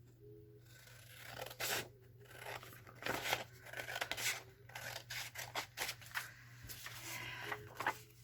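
Scissors cutting through paper in a run of irregular snips.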